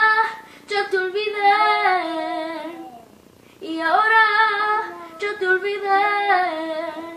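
A young girl singing unaccompanied, holding long, drawn-out notes in two phrases with a short breath-break about three seconds in.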